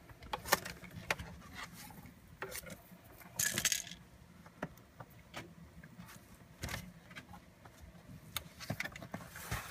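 Scattered small clicks, taps and rubbing from hands handling a laptop and its AC adapter cable, with a short scraping rustle about three and a half seconds in.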